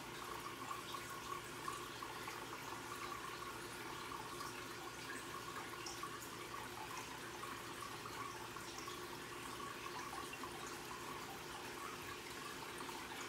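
Aquarium filter running: a steady trickle of water with small bubbling ticks, over a faint steady hum.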